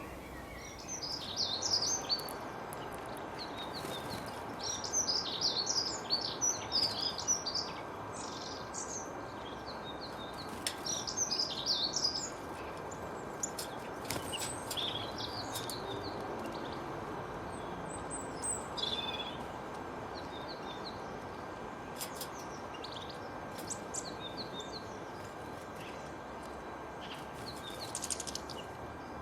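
Songbirds singing in repeated bursts of quick, high chirps and twitters, over a steady background hiss.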